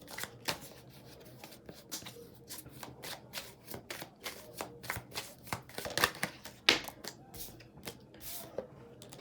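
A deck of tarot cards being shuffled by hand: an irregular run of quick card flicks and slaps.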